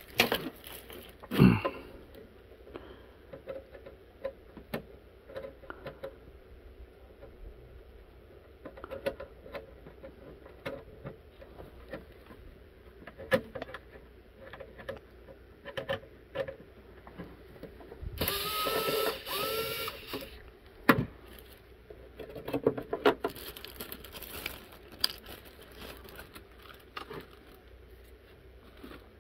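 Scattered clicks, taps and rattles of hands handling a Radio Shack Model 4P computer's plastic case and a small cordless screwdriver, with a sharp knock about a second and a half in and a louder, noisier stretch of about two seconds a little past the middle.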